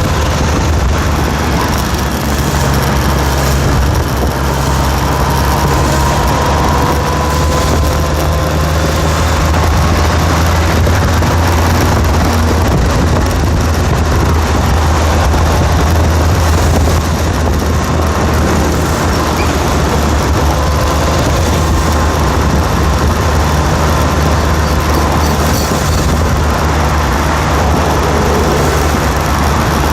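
An engine running steadily with a loud low rumble and a faint whine that drifts slowly in pitch.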